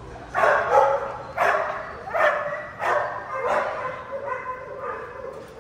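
Dog barking in a shelter kennel: a run of about six barks over three and a half seconds, then fainter ones.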